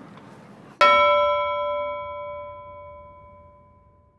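A single chime struck about a second in, ringing with several clear tones that fade away over about three seconds, over faint background noise.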